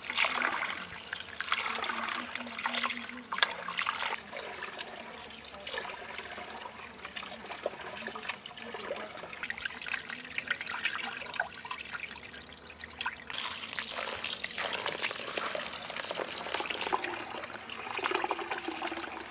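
Water running and splashing unevenly, as when something is rinsed or washed by hand.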